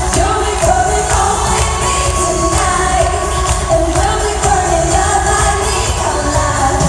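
Live pop concert music: a singer's voice over heavy bass and a steady drum beat.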